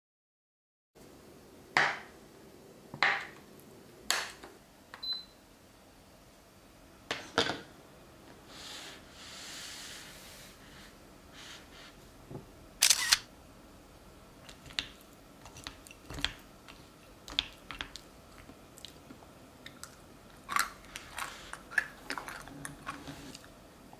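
A camera shutter giving a few sharp clicks several seconds apart as a photo is taken. Near the end come lighter, quicker clinks of a spoon against a ceramic bowl.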